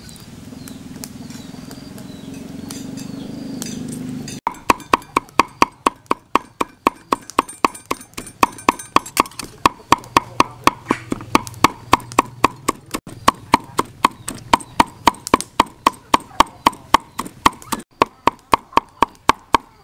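Cleaver chopping soaked dried red chilies on a wooden chopping board: rapid, even knocks about three a second, each ringing briefly, starting about four seconds in after a steady low hum.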